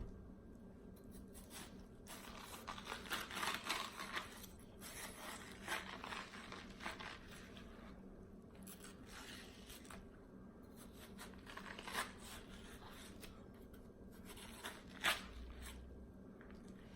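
Close-miked biting and chewing of crisp, juicy watermelon: wet crunching in irregular bursts, busiest in the first half, with two sharp single crunches later on.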